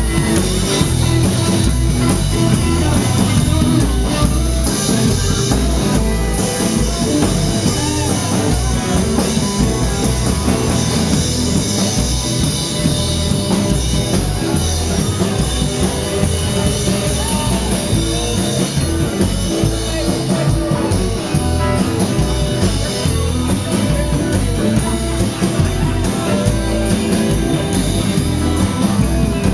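Loud rock music with drum kit and guitar, with some singing.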